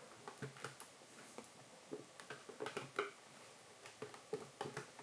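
Faint, scattered light clicks and taps of a clear plastic display case shifting in the hand as it is turned over.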